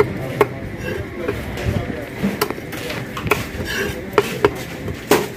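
A large curved knife chopping through a fish onto a wooden chopping block: several sharp chops at irregular intervals, the loudest near the end.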